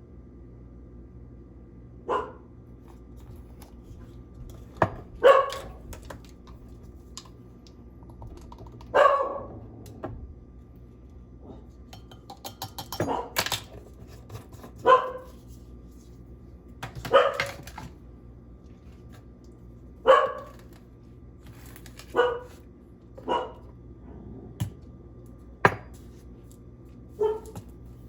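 A dog barking in single short barks, about ten of them spaced two to three seconds apart, with a couple of sharp clicks in between and a faint steady hum underneath.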